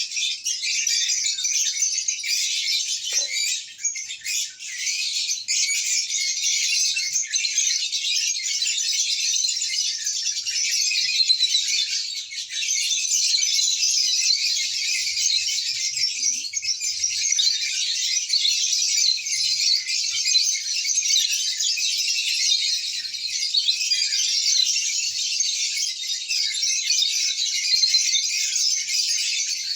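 A flock of lovebirds chattering continuously: a dense, unbroken mass of high-pitched chirps and squeaks.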